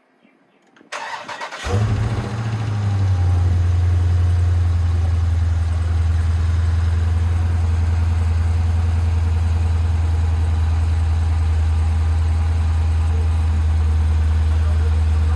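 A 2020 Dodge Scat Pack's 6.4-litre HEMI V8, fitted with a Hellcat airbox, cranking on the starter about a second in, catching with a brief rev flare and then settling into a steady idle.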